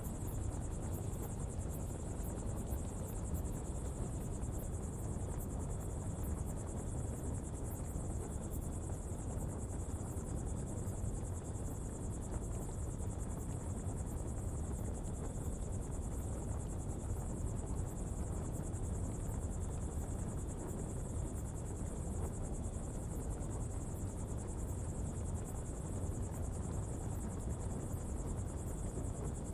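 Hopi coal pottery fire burning with a steady low rumble, while insects chirr continuously in a constant high-pitched band.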